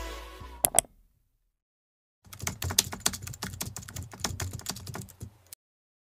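Typing sound effect: a rapid run of keyboard clicks lasting about three seconds. It follows the last second of fading music and a short silence.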